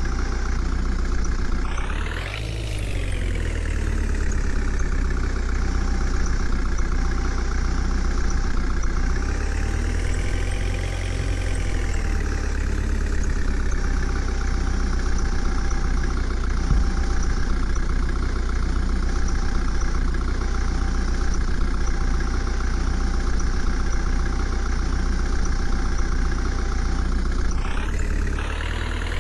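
Diesel engine of a JCB 3DX backhoe loader running steadily. Its revs rise sharply about two seconds in and drop back, swell again more slowly around ten seconds, and climb once more near the end.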